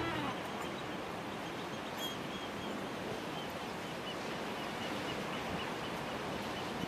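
Sea surf washing and breaking on the rocks below a cliff: a steady, even rush of wave noise.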